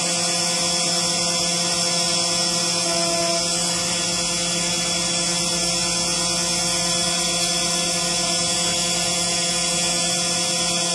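CNC engraving machine running: a steady drone made of several fixed tones over a high hiss, holding even throughout.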